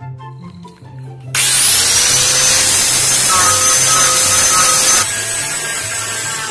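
Electric angle grinder shaping a wooden bolo handle, over background music. About a second in, the grinder starts with a rising whine as it spins up, then runs loud and steady; about five seconds in its pitch and level drop, and it keeps running.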